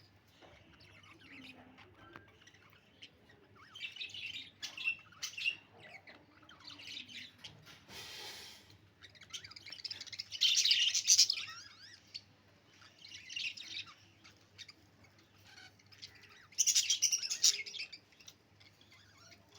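Budgerigars chirping and warbling in quick, busy bursts, loudest about ten seconds in and again near the end. There is a brief rushing hiss about eight seconds in.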